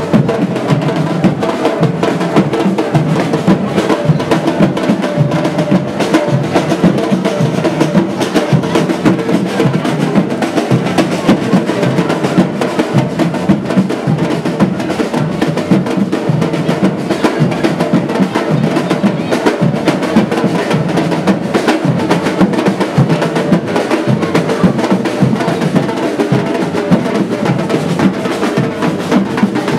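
Batucada samba drum group playing a continuous, driving drum rhythm of bass drums and snare drums.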